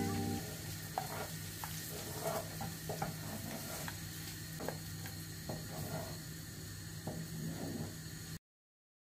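Silicone spatula stirring and scraping a cream sauce in a stainless steel saucepan, making soft irregular scrapes and clicks against the pan, over a steady low hum. The sound cuts off abruptly about a second before the end.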